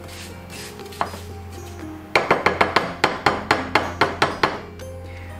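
A rapid run of sharp knocks, about five a second, from a spatula striking a glass baking dish as diced apples are stirred with sugar. It starts about two seconds in and stops shortly before the end, over soft background music.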